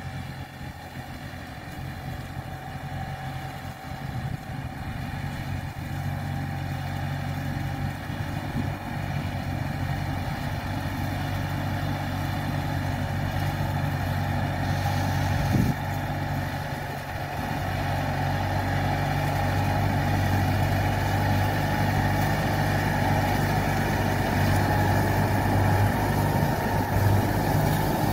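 Farm tractor's diesel engine running steadily under load as it pulls a rotary hay tedder through cut grass, growing louder as it comes closer.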